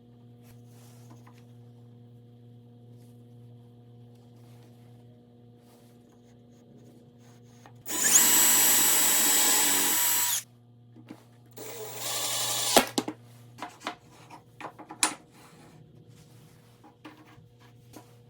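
A power tool runs for about two and a half seconds with a high whine, starting and stopping suddenly, then runs again more quietly for a moment, followed by several sharp knocks of wood.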